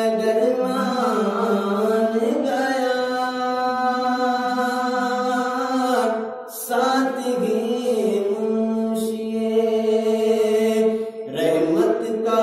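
A man chanting devotional verse solo, without instruments, in long held notes on a steady pitch. He breaks for breath about six and eleven seconds in.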